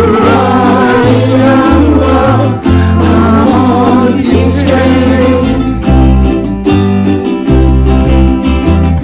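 A group of voices singing in unison over several ukuleles and a guitar strumming. About halfway through, the voices drop out and the ukuleles and guitar strum on alone.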